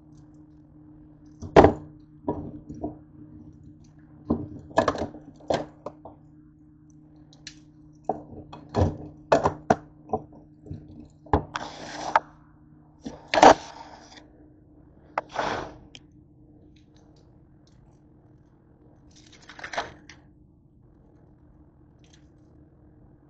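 A cooking pot and instant ramen packets being handled and set down on a kitchen counter and stovetop: a run of sharp knocks and clunks with a few short rustling bursts, over a steady low hum.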